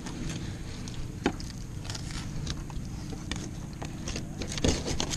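Fillet knife cutting and scraping along a fish on a plastic cleaning table: small scattered clicks and knocks, with a louder cluster near the end. Under it runs a steady low rumble.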